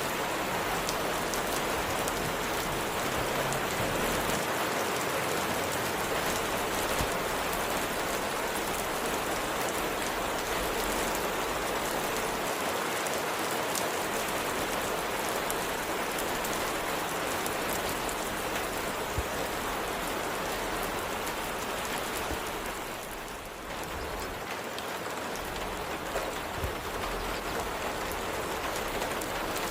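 Steady rain falling, an even dense patter that eases briefly about three quarters of the way through.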